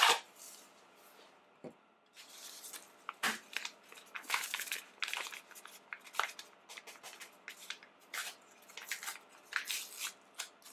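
Paper envelopes of Dream Whip topping mix pulled from their cardboard box and torn open: a string of short, sharp papery rustles and crinkles that starts about two seconds in.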